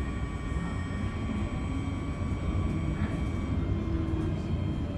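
Steady low rumble of a tram running along its rails, heard from inside the car, with a faint steady whine from the drive above it.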